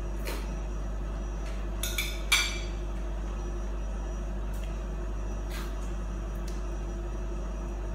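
Quiet eating by hand at a table: a few light clicks and a sharper clink of tableware, the loudest about two and a half seconds in, over a steady low hum.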